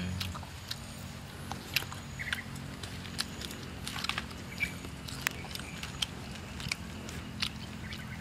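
Someone eating grilled fish by hand off a banana leaf: scattered small clicks and smacks from chewing and from picking at the crisp skin and flesh, over a steady low hum.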